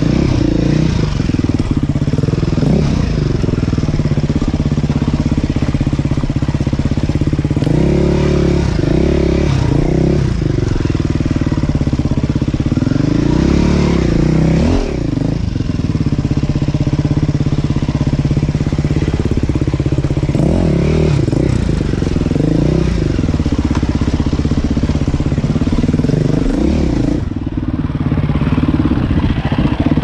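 Dirt bike engine running hard under the rider, its revs rising and falling again and again as the throttle is worked.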